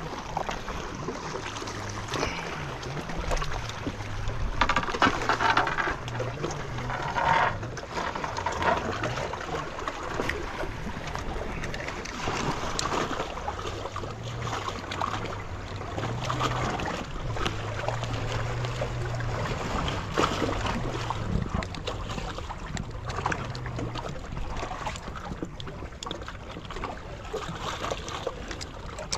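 Sea water washing and trickling among the rocks of a breakwater, a steady wash, with a low hum underneath that moves up and down in pitch in steps.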